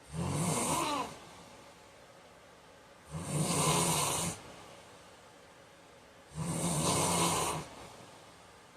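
A heavyset man snoring: three loud snores about three seconds apart, each lasting a second or so, with a low buzzing rattle.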